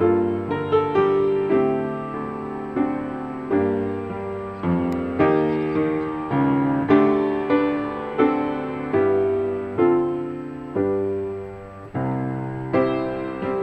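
Solo piano music, a gentle melody of single struck notes and chords, each ringing and fading before the next.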